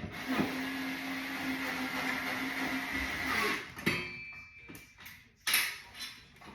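A handheld power drill runs at a steady speed for about three and a half seconds and then stops. A sharp knock follows, and a louder knock comes later.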